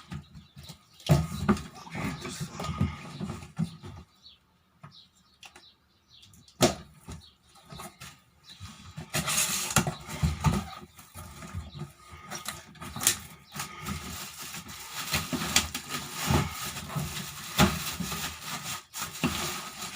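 Table fan being unpacked from its box: packaging rustling, with irregular knocks and clicks as parts are handled. It goes quiet briefly about four seconds in, then the rustling grows denser about nine seconds in.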